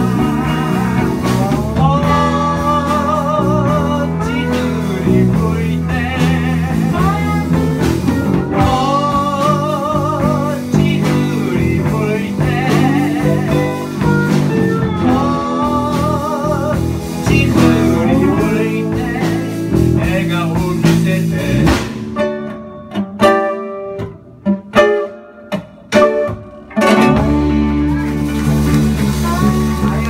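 Live blues band playing: electric guitar and ukulele with singing, long lead notes with a wide vibrato over a steady bass line. About 22 seconds in the band breaks down to a few short stabbed notes, then comes back in together near the end.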